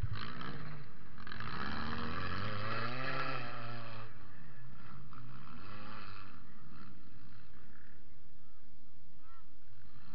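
Toyota Matrix demolition derby car's engine revving up and down, heard from inside the stripped car, the pitch rising and falling several times, strongest in the first four seconds and again about six seconds in.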